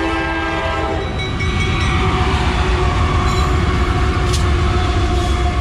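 A locomotive horn sounds a chord that cuts off about a second in. Then an intermodal freight train runs past with a steady, loud low rumble of wheels on rail.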